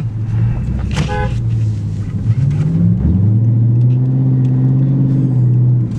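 Engine and exhaust of a cammed V8 pickup running under way with a steady low drone. About three seconds in the note dips, then climbs and holds louder as the truck accelerates.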